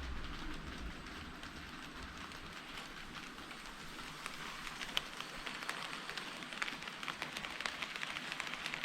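HO scale model train running on the track: a low motor hum fades away in the first two or three seconds, leaving a dense, irregular crackle of small clicks from the wheels on the rails that grows toward the end.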